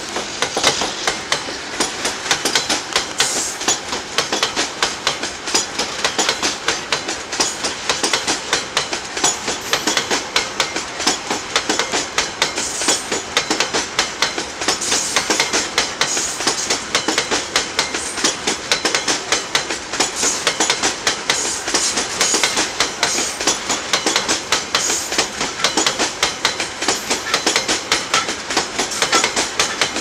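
Loaded freight wagons, high-sided open gondolas carrying coal, rolling past close by with a steady, rapid clickety-clack of wheels over rail joints over a continuous rolling rumble.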